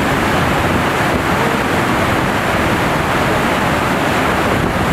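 Heavy whitewater of a large waterfall pouring and crashing over boulders close by: a loud, steady rush of water.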